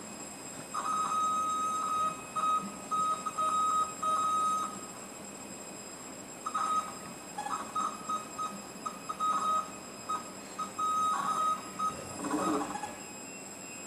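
Bulleri CNC machine giving off a steady high-pitched tone that starts and stops irregularly in two long runs, broken by a pause of a couple of seconds, then a short rattling noise near the end.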